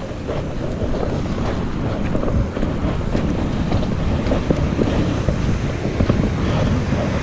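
Wind buffeting the microphone in a steady low rumble, over waves breaking and foamy surf washing up a sandy beach.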